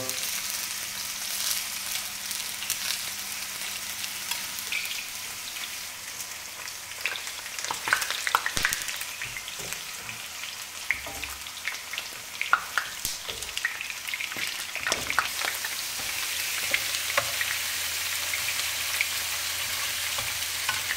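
Eggplant halves frying in oil in a pan, a steady high sizzle. Metal tongs click and knock against the pans now and then, most often in the middle, as pieces are lifted and turned.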